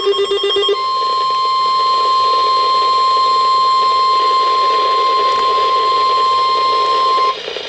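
NOAA Weather Radio's 1050 Hz warning alarm tone: one loud, steady, high tone held for about six and a half seconds that stops suddenly near the end. It is the signal that a warning message follows. It opens with a brief rapid pulsing burst of digital data.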